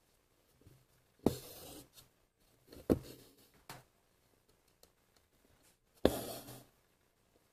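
Hand embroidery on cloth stretched tight in a hoop: three sharp taps of the needle through the fabric, each followed by a short rasping hiss of stranded floss being pulled through. The first and last pulls are the longest.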